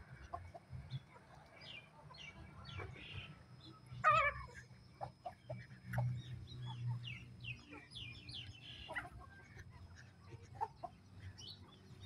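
Chickens clucking, with many short calls throughout and one louder, longer squawk about four seconds in.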